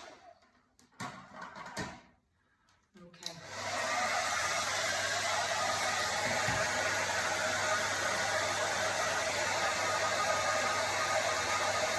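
Electric hair dryer started from a switch box about three seconds in, then running steadily with a continuous rush of air over a low motor hum.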